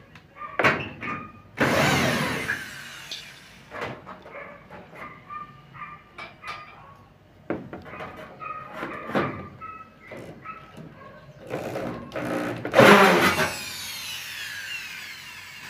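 Cordless drill run in short bursts against a PVC gutter as it is fastened, the two longest runs about two seconds and thirteen seconds in, with a falling whine as the motor spins down after the last one.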